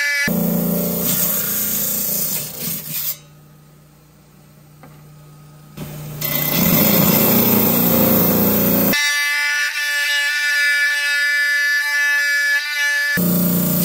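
Stone-cutting saw cutting through ammonite fossils: stretches of grinding noise over a low motor hum alternate with stretches of a steady high whine from the blade. The sound changes abruptly several times, and drops much quieter for a few seconds about three seconds in.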